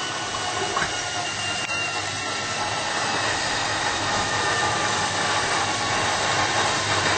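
Steady hiss of noise with no clear impacts, slowly growing louder.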